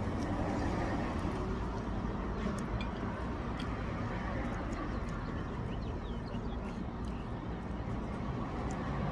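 Steady outdoor background noise, like road traffic, with a few faint clicks and short high chirps.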